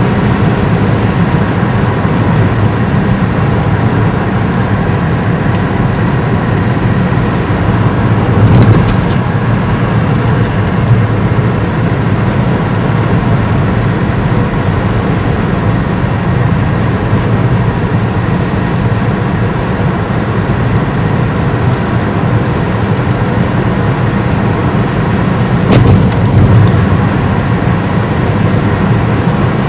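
Steady engine and road noise inside a moving car's cabin. Two brief thumps come about a third of the way in and again near the end.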